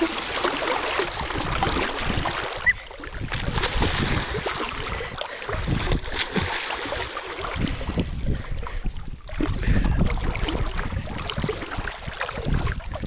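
Wind buffeting the microphone over the rushing and splashing of shallow river water, an uneven noisy rumble with no clear pitch.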